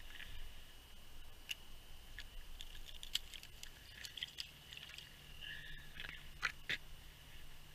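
Scattered light clicks and scrapes as a gloved hand handles a fishing line and a small perch at an ice-fishing hole, with two sharper snaps near the end. A faint steady high whine runs underneath.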